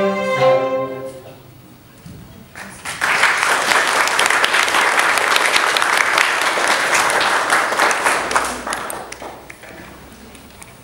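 A string orchestra of violins and cellos holds a final chord that stops about a second in. After a short pause, an audience breaks into applause for about six seconds, which then fades away.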